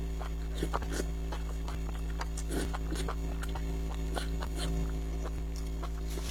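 Close-miked eating sounds: irregular wet smacks and clicks of chewing, over a steady low hum.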